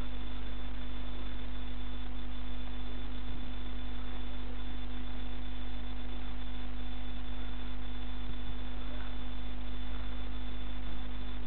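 Steady low electrical hum over a constant hiss, with no distinct crunching or stomping impacts.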